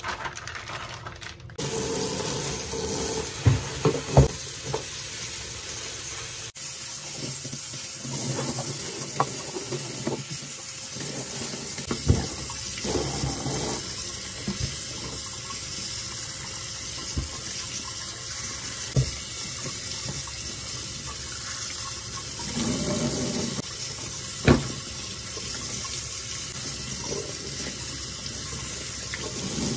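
Tap water running into a stainless steel sink as vegetables are rinsed under the stream, starting about a second and a half in. A few sharp knocks stand out as produce is handled against the sink.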